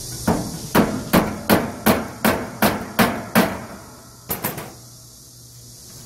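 Hammer striking a screwdriver set in a rusted screw on an air conditioner outdoor unit's sheet-metal casing: about nine sharp blows, a little over two a second, then a quick couple of lighter taps after a short pause. The screw is rusted fast and will not turn.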